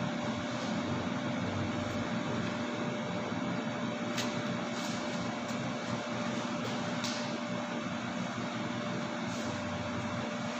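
Steady mechanical hum and hiss of a room, with a constant low drone, and a few faint short clicks about four and seven seconds in.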